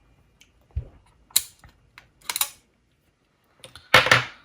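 Scattered sharp plastic clicks and small knocks from a Sony WM-DD33 cassette Walkman being handled on the bench, with the loudest cluster of clicks near the end.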